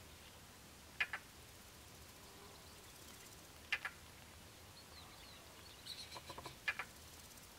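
Short harsh bird calls, three of them a few seconds apart, with faint high chirps and a quick run of softer notes just before the third call.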